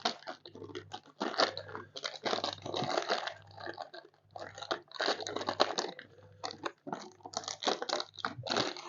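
A ration-pack oat biscuit packet being torn open and handled, with irregular crackling and crunching of the wrapper throughout.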